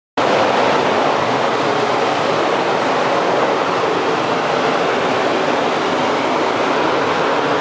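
Paint spray gun hissing steadily with compressed air as it sprays, cutting in suddenly just after the start.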